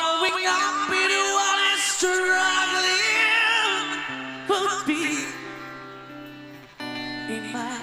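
Male singer singing with strong vibrato in long held phrases over instrumental accompaniment. The voice fades out about six seconds in, and the accompaniment moves to a new sustained chord near the end.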